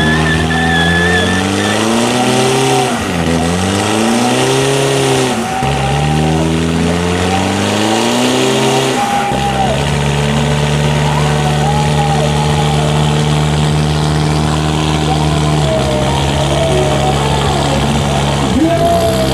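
Toyota Fortuner turbo-diesel engine revved hard in a burnout, with the rear tyre spinning and squealing on the paving. The revs surge up and fall back several times in the first half, then hold high and steady for about six seconds, dip briefly and climb again near the end.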